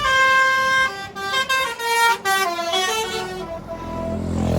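Telolet multi-tone air horn playing a quick melody of held notes that step from pitch to pitch, ending in a run of falling notes about three seconds in. A heavy vehicle's engine rumble builds near the end.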